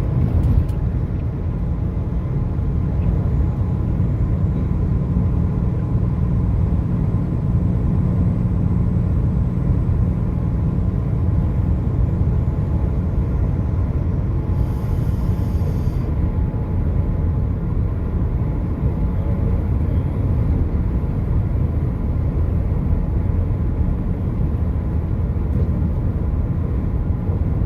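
Car driving on a highway, a steady low rumble of engine and tyre noise.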